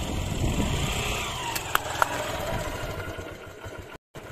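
Motorcycle engine running at low speed, an uneven low rumble with a few faint clicks about two seconds in. The sound drops out for a moment near the end.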